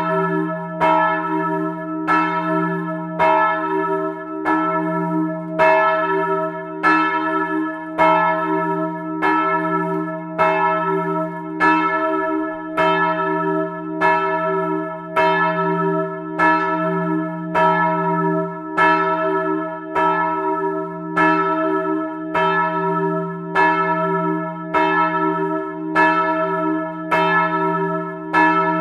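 Several large church bells swinging in their steel frame and ringing together, heard close up inside the belfry. The clappers strike in a steady rhythm about once a second, and the ringing tones overlap into a continuous hum between strokes.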